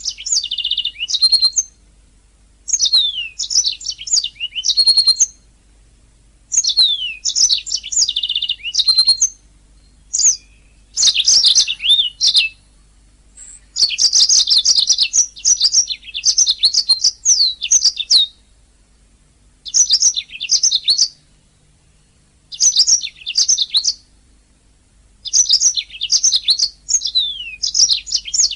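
Domestic canary singing in repeated phrases of rapid high chirps, trills and downward-sliding whistles, each phrase lasting a second or few, with short pauses between them.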